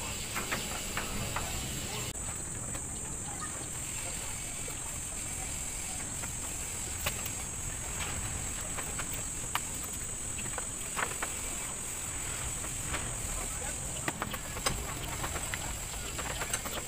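Scrubbing of a soapy car engine bay with a wash mitt and brush, with scattered light clicks and knocks against its plastic and metal parts. A steady high insect drone runs behind it, starting about two seconds in and stopping near the end.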